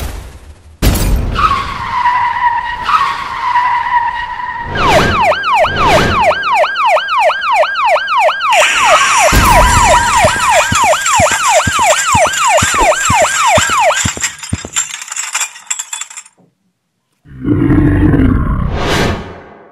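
Emergency-vehicle siren sound effect, a falling yelp repeating about three times a second, with a second siren layered over it partway through before both fade out; it is preceded by a held tyre-screech squeal. Near the end comes a short rising whoosh.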